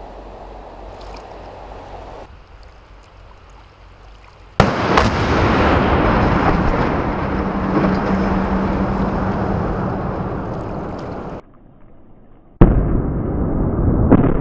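Shaped demolition charges going off on a steel truss bridge: a sudden loud blast about four and a half seconds in, followed by several seconds of rumbling that slowly fades as the span comes down. Another sudden loud blast comes near the end.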